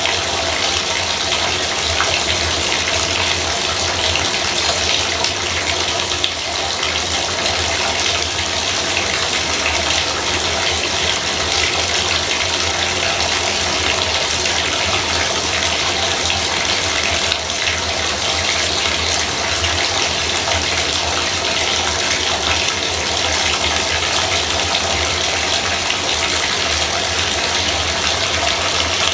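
Bathtub faucet running steadily, water splashing into the tub with an even rush, over a low steady hum.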